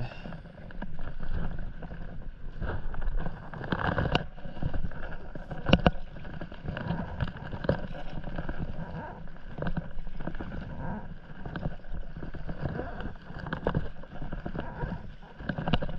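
Stand-up paddleboard paddle strokes: the blade dips and pulls through calm sea water again and again, with splashing and lapping water, and a few sharp knocks.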